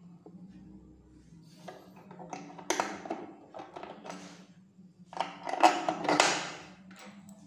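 Two bursts of scraping, rubbing and clicking from hands working on a button-attaching machine's head as screws are fitted, the second burst the louder, over a faint steady low hum.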